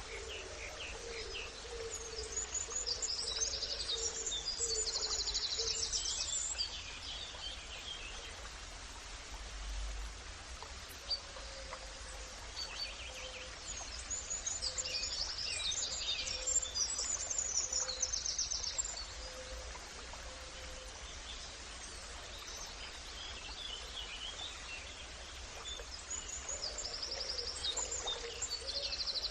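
Birdsong: songbirds singing rapid high trilled phrases three times, roughly every ten to twelve seconds, with scattered chirps and a faint repeated low call, over a steady outdoor background hiss.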